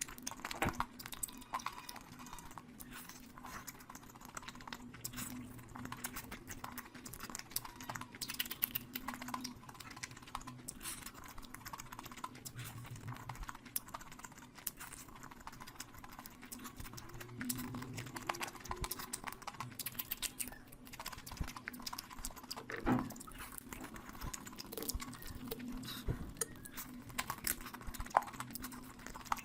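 Close-miked eating: wet chewing and lip-smacking with a dense run of sharp mouth clicks, one louder click a little past the middle.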